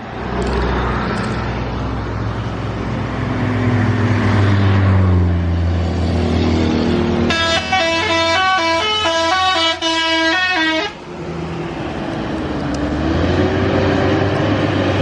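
A bus engine running under load, its pitch sagging and then rising again. About seven seconds in, a telolet horn plays a quick multi-note tune for three to four seconds, the tones jumping from note to note, before the engine is heard alone again.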